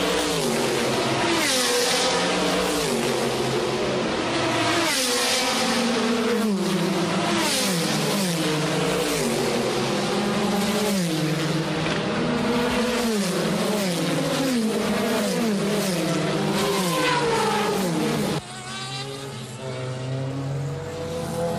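Group C sports-prototype racing cars going by one after another at full speed, each engine note falling in pitch as it passes. About 18 s in the sound cuts to a quieter, steadier drone of cars further off.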